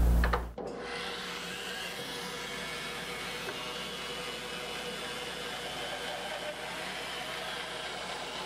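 Bandsaw resawing a pine board, the blade running steadily through the wood. A louder low hum cuts off abruptly about half a second in.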